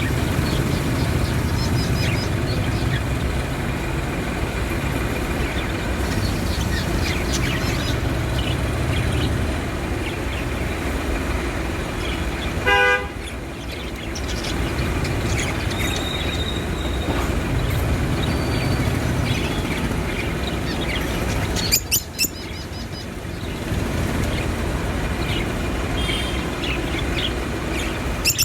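Baby budgerigars chirping faintly over a steady low rumble, with a short pitched toot about thirteen seconds in and a few sharp clicks later on.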